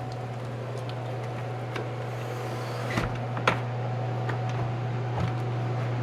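A steady low hum runs throughout, with scattered light clicks and two sharper knocks about three seconds in, half a second apart.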